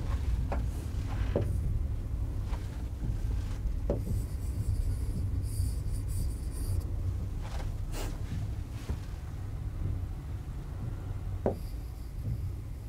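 Pen scratching and tapping on a touchscreen whiteboard while drawing: scattered light ticks and short scratchy strokes over a steady low hum.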